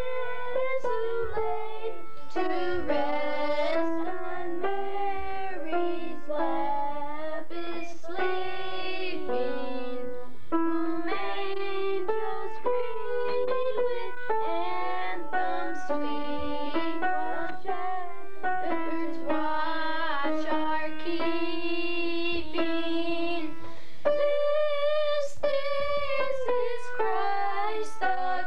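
Children and a woman singing a Christmas song together, accompanied on an upright piano.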